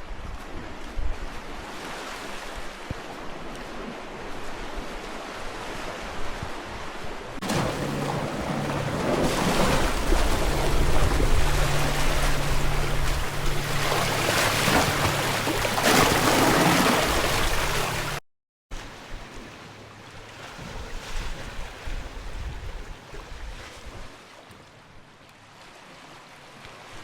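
Surf washing onto a cove shore, with wind buffeting the microphone. It grows louder about a third of the way in, when a steady low hum joins it. After a brief drop-out it carries on more quietly.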